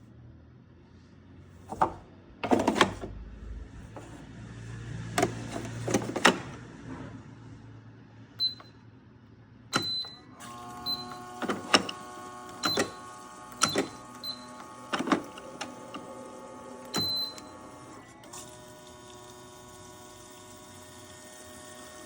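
Coffee machine being worked: a run of clicks and knocks, then short high beeps, and about ten seconds in its motor starts and runs with a steady hum that shifts slightly near the end.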